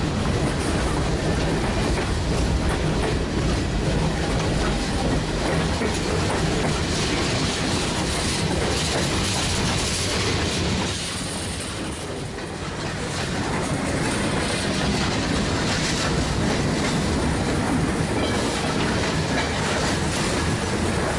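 Freight cars of a passing mixed freight train rolling by close up: a steady noise of steel wheels on the rails, briefly softer about halfway through.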